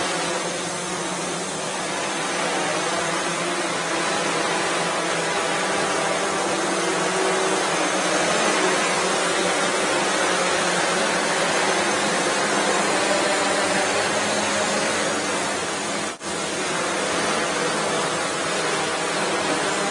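Several small quadrotors' propellers whirring steadily, a mix of many overlapping tones in a steady hiss, with one very short break about sixteen seconds in.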